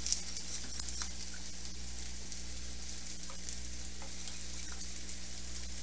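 Onions sizzling steadily in a cast-iron skillet, with a few light clicks from a whisk stirring cheese sauce in a stainless saucepan.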